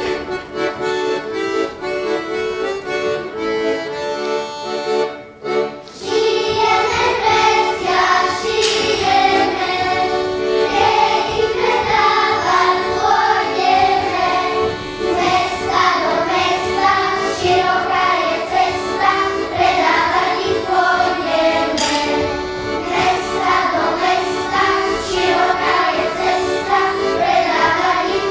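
Slovak folk music led by an accordion. About six seconds in, a group of children's voices joins, singing a folk song over the accordion accompaniment.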